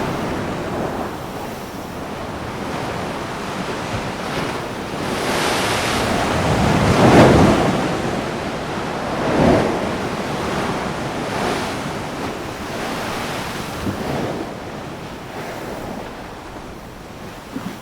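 Large ocean waves breaking fast and crashing into surf, with strong wind buffeting the microphone. The crash swells loudest about seven and nine seconds in and eases toward the end.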